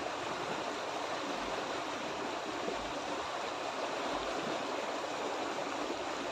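Small stream rushing white over a low rocky step, a steady splashing flow of water.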